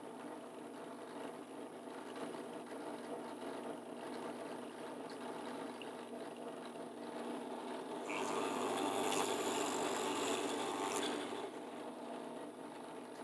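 Benchtop drill press running with a steady motor hum; about eight seconds in, a Forstner bit bores into wood for about three seconds, a louder cutting noise over the hum.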